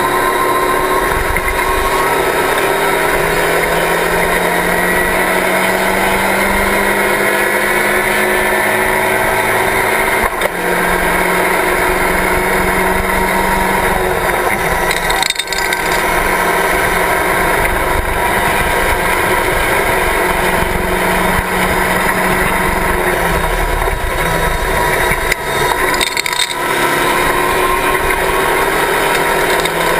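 Locost race car's engine running hard at high revs, its pitch climbing slowly as the car accelerates. There are brief breaks about ten, fifteen and twenty-six seconds in where gears change, over a steady rush of wind and road noise in the open cockpit.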